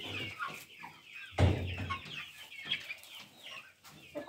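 A flock of young chickens cheeping and clucking, with many short calls overlapping. A brief low thud about a second and a half in is the loudest moment.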